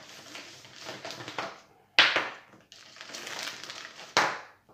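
Clear plastic packaging bag crinkling and rustling as plastic Q-snap frame tubes are pulled out of it, with two sharp plastic knocks, about two seconds in and again near the end, as the pieces are handled and laid down on the table.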